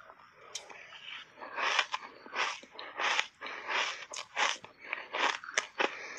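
Close-up mouth sounds of shaved ice being crunched and chewed, a steady run of crunches about two to three a second that picks up after a quieter first second or so.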